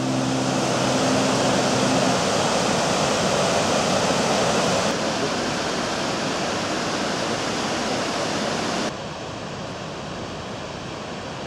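Waterfall water pouring, a steady dense rush that drops abruptly in level twice, as between cuts. The tail of a musical chord fades out at the start.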